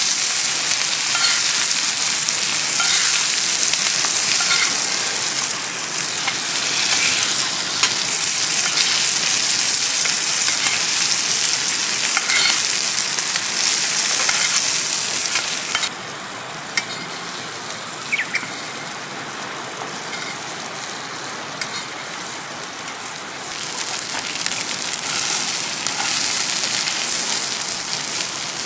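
Steak sizzling hard in a hot pan over a campfire, a dense hiss with scattered pops and spits. About halfway through the sizzle drops suddenly to a much quieter level, then builds back up near the end.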